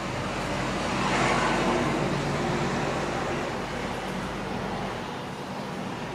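A motor vehicle passing: a steady engine and road noise that swells about a second in and slowly fades away.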